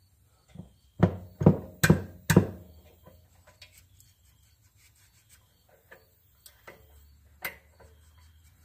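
Hand tools being handled at a small engine's valve rockers while the valve lash is set: four quick knocks about a second in, then a few faint ticks.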